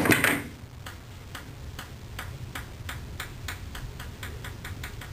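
The tail of a song cuts off at the start. Then a rapid run of light ticks, about four to five a second, goes on over a low steady hum.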